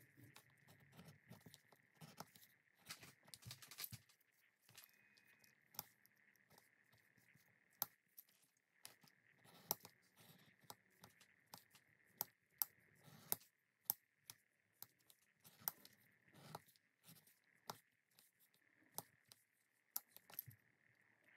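Irregular small clicks and taps from hand leatherworking: tools and leather being handled and worked, with louder sharp ticks clustered in the middle, over a faint steady hiss.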